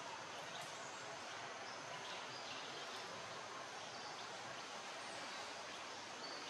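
Steady outdoor forest ambience: an even hiss at a constant level, with a few faint, short, high chirps now and then.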